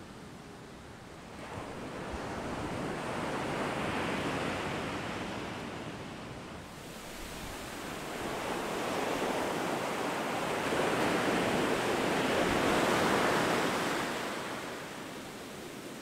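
Ocean surf breaking and washing up a sand beach: two long swells of rushing noise, the first building about a second and a half in, the second louder, rising to a peak late on and then falling away.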